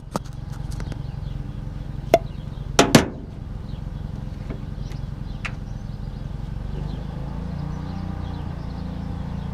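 Three sharp knocks, one about two seconds in and a close pair just under a second later: a hammer striking the top of a grease joint rejuvenator to force thin oil into a dried-out grease zerk. A steady low machinery hum runs underneath.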